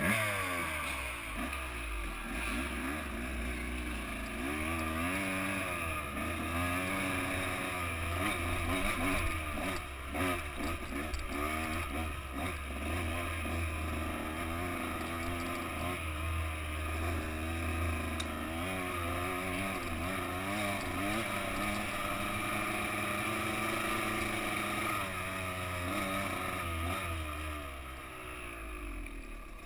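Dirt bike engine running under way, its pitch rising and falling constantly as the throttle is worked over rough trail. It eases off near the end.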